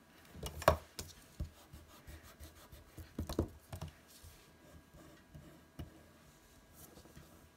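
Mechanical pencil scratching and tapping on a sheet of paper on a table, with hand-on-paper rubbing. A sharp knock comes a little under a second in, and a cluster of rubbing strokes comes around three seconds in.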